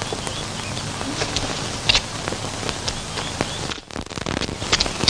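Steady hiss with scattered, irregular clicks and crackles, the surface noise of an old film soundtrack; it drops out briefly near the end.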